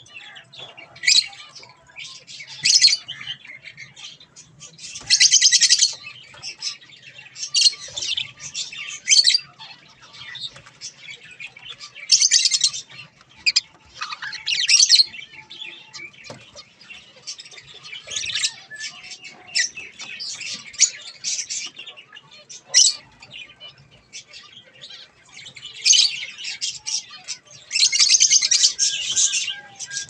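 Budgerigars chattering: bursts of rapid high chirps, each up to about a second and a half long, recurring every few seconds.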